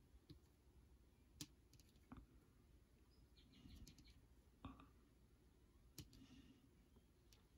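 Near silence with about half a dozen faint, scattered clicks.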